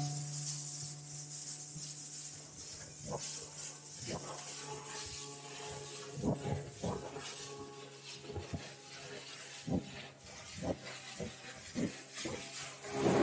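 Motorboat engine running slowly with a faint steady hum, throttled back from cruising. Irregular light knocks and a faint hiss can be heard over it.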